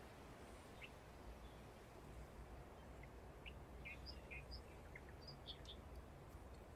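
Near silence: low room hum with a few faint, short high chirps of small birds, most of them in the second half.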